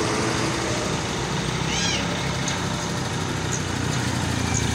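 Steady rumble of road traffic and a vehicle engine running. A brief high chirping call sounds about two seconds in, and faint short chirps follow later.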